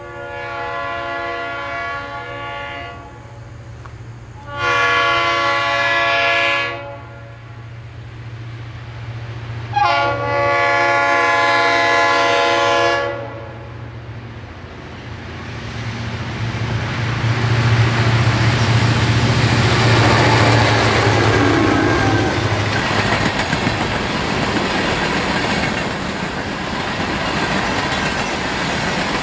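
Norfolk Southern diesel locomotive sounding three long horn blasts, the second and third louder, then the train passing close by: a low engine drone that swells and fades, followed by the steady rumble and clickety-clack of the cars on the rails.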